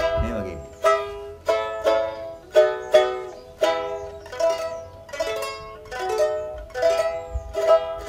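A small acoustic string instrument strummed in chords, about two strums a second in a steady calypso rhythm.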